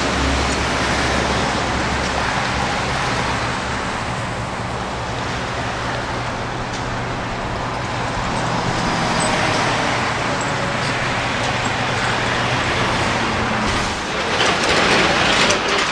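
Heavy trucks driving past, a steady diesel engine drone with tyre and road noise. It swells louder near the end as a semi-trailer passes close.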